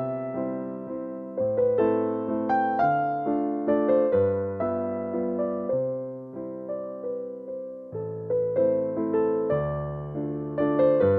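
Background music: a soft electric piano playing a gentle melody over chords, each note struck and fading.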